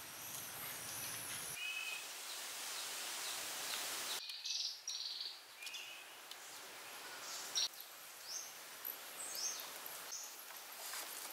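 Outdoor background hiss with a series of short, high-pitched chirping calls, some sliding up or down in pitch. The background changes abruptly twice in the first few seconds.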